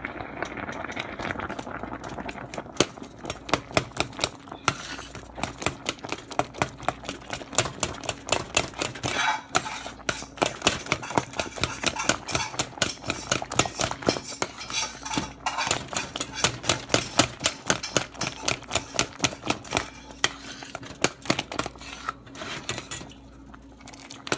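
Metal ladle clinking and scraping against a steel pot while stirring okra sauce: a long, uneven run of sharp clinks, several a second, over a faint steady hum.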